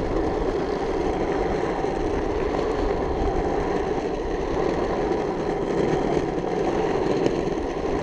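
Waveboard caster wheels rolling steadily over asphalt, a continuous rolling rumble.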